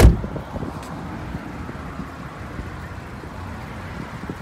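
A single heavy, low thump right at the start, then a steady low rumble with a few small knocks from a handheld phone being moved about inside a parked car.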